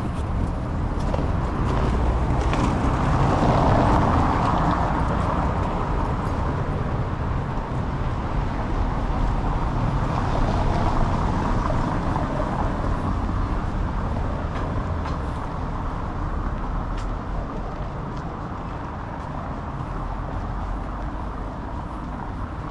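City street traffic: cars passing in a continuous wash of noise, with one vehicle passing louder about four seconds in and another around ten seconds in.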